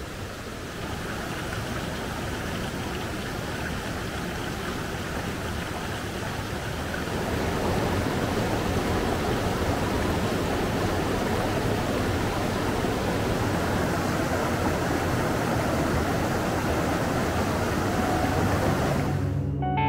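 Flowing water, a steady rushing hiss with no distinct splashes, growing louder about seven seconds in.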